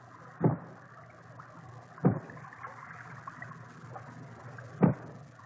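Male bullhead (miller's thumb) barking at the entrance of its nest cave, a courtship call to attract a female and deter rival males: three short barks, one to three seconds apart, over a steady watery hiss.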